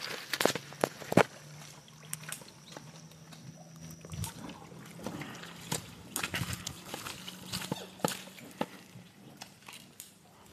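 Dairy cattle at a shed's feed rail: scattered knocks and clicks as they feed and move. A low steady hum runs underneath.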